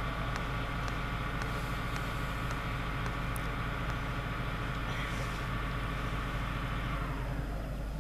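Steady mechanical drone of a stationary electric locomotive, a hum of many steady tones with its higher tones dying away over the last second.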